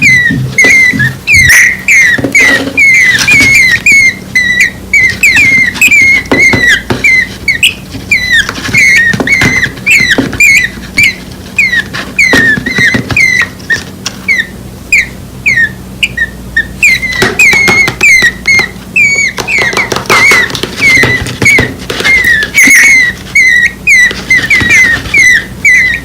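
Two nestling birds, less than a week old, giving a steady stream of short, high chirps, about three a second: hungry babies' begging calls for their mother.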